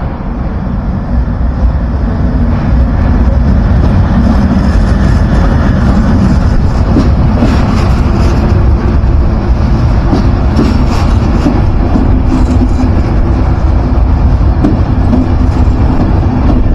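Electric locomotive-hauled passenger train pulling in alongside a platform: the locomotive and then its coaches roll close past, wheels clacking over the rails. The rumble builds over the first few seconds, then stays steady and loud.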